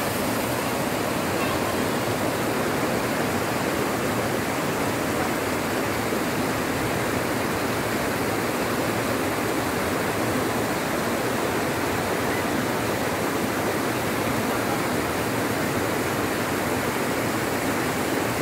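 Mountain river rushing over boulders and through small rapids: a steady, unbroken rush of water.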